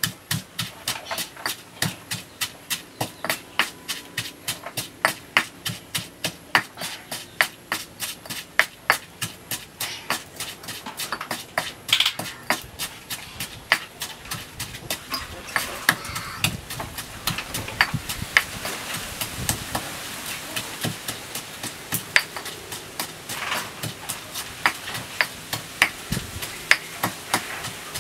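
Pestle pounding in a stone mortar, crushing chili sauce ingredients: sharp knocks about two to three a second, evenly paced at first and less regular in the second half.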